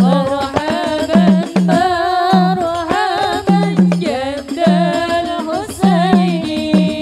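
A woman's voice singing an Arabic sholawat (Islamic devotional song) through a microphone, in long ornamented lines with vibrato, over a steady drum rhythm.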